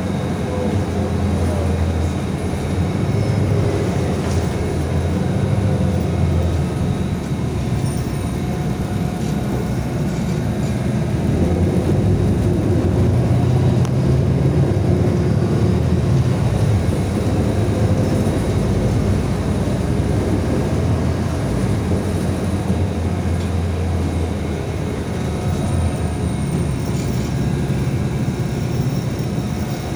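Inside the cabin of a moving city bus: steady engine and road rumble, the engine note rising and falling as the bus speeds up and slows.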